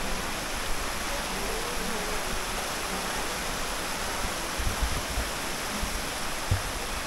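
Creek water rushing over a small rocky cascade, a steady even rush.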